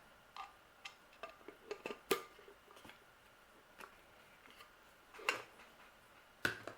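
Small plastic toy pieces clicking and tapping as a mini figure and its accessories are handled and fitted back into their little toy house: scattered light clicks at irregular intervals, a few louder taps near the middle and end.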